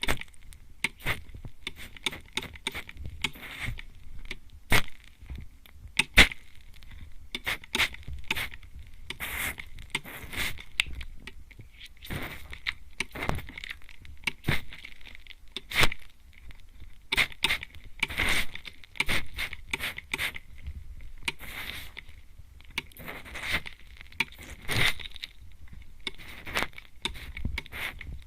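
Spray bottle misting close at the ear: many short, irregular sprays, some with a sharp click, coming a few times a second.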